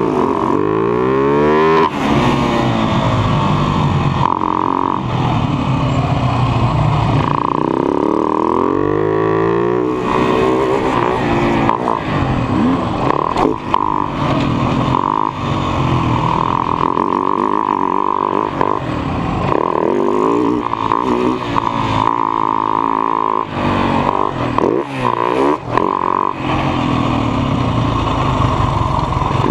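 Husaberg FS 570 supermoto's single-cylinder four-stroke engine under hard riding, its pitch repeatedly rising and falling as the throttle opens and closes.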